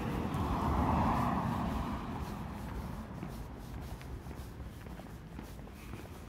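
A road vehicle passing on the street, its tyre and engine noise swelling to its loudest about a second in and then slowly fading away, with faint footsteps underneath.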